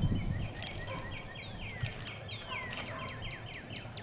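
A songbird singing: a rapid string of short, repeated chirps, about six a second, broken by a few longer downward-sliding whistles, with a few light clicks from tools alongside.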